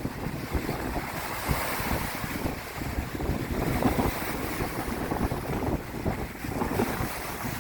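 Strong, gusty wind buffeting the microphone, with lake waves washing and breaking against the shore.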